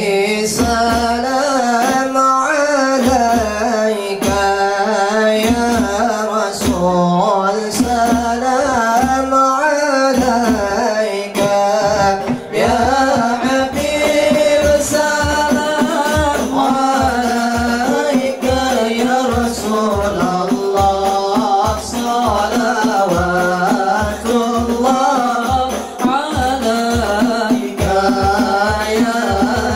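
Young men singing an Arabic sholawat (devotional song in praise of the Prophet) together, accompanied by rebana frame drums beating a steady, quick rhythm.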